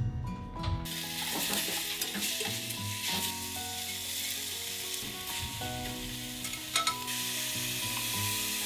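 Food sizzling as it is fried and stirred in a pot. The sizzle starts suddenly about a second in and stays steady, with a couple of light utensil taps near the end.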